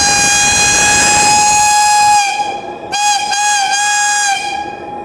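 Steam whistle blowing with a hiss of steam: one long steady blast, then after a short break a second blast broken into three quick toots.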